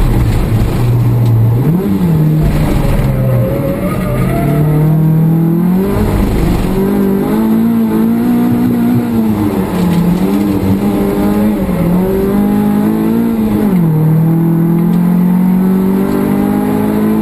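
Nissan Sunny race car's engine heard from inside the caged cabin on track, pitch climbing under acceleration and dropping several times as the driver lifts off and shifts gears.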